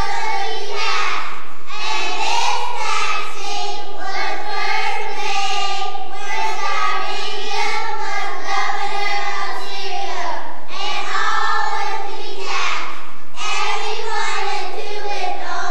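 A group of young children reciting a Bible passage together in unison, the massed voices breaking off briefly between phrases.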